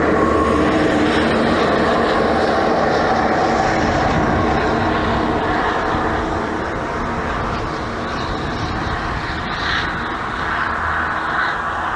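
Steady engine drone with a rushing noise over it, slowly growing quieter through the second half.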